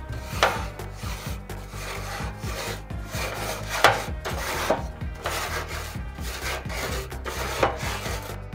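Grill brush scrubbing the metal grill grates in repeated back-and-forth scraping strokes, a few of them louder than the rest.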